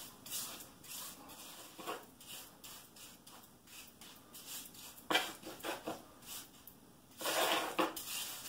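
Hand trowel scraping and working a stiff, sticky concrete mix in a countertop mold: irregular rasping strokes, loudest about five seconds in and again near the end.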